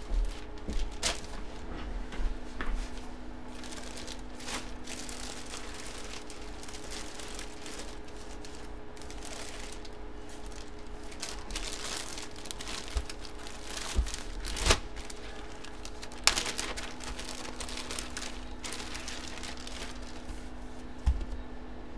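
Plastic packaging crinkling and rustling in irregular spells, with a few sharp knocks, loudest about two-thirds of the way through. A steady low hum runs underneath.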